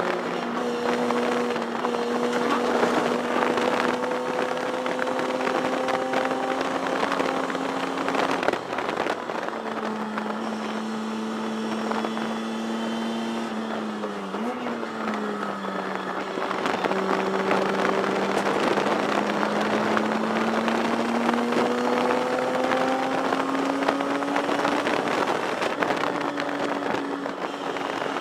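1973 Datsun 240Z race car's inline-six engine under hard running, heard from inside the cockpit. Its pitch climbs slowly, drops about eight seconds in, holds lower with a quick rev blip about fourteen seconds in, then climbs steadily again.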